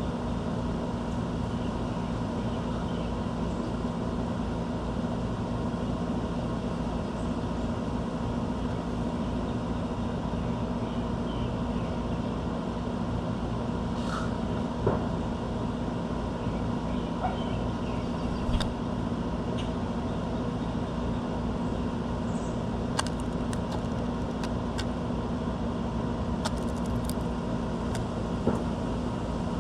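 Steady low mechanical hum of urban background noise, with a few sharp clicks scattered through the second half.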